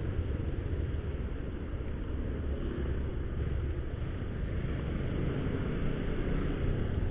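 Steady low rumble of a motorcycle being ridden along a road, its engine and road noise heard from the rider's seat, with no change in speed or revs.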